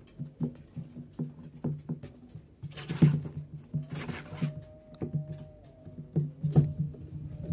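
A cat playing on its own: irregular soft taps and knocks, with two short rustling bursts about three and four seconds in.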